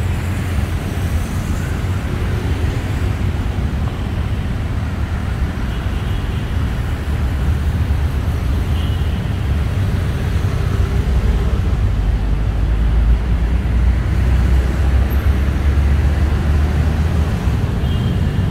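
Steady low rumble of passing road traffic, growing a little louder in the second half.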